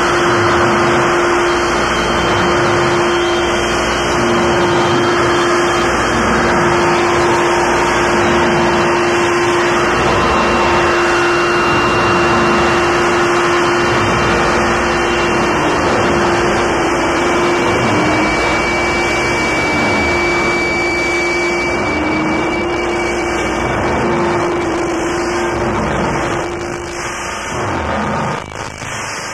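Power electronics noise music: a loud wall of harsh, distorted noise with a steady droning feedback tone and thin high whining tones above it. Near the end the noise thins out and breaks up.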